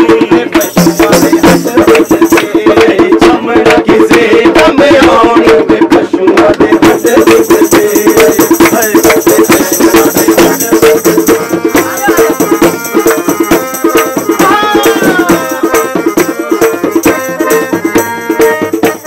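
Devotional bhajan music with hand clapping and a rattle keeping a fast, even beat over a steady drone.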